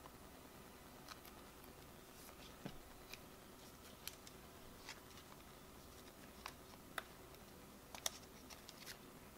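Trading card being slid by hand into a plastic card sleeve for double-sleeving: faint, scattered small clicks and scrapes, the sharpest two about seven and eight seconds in, over a faint steady hum.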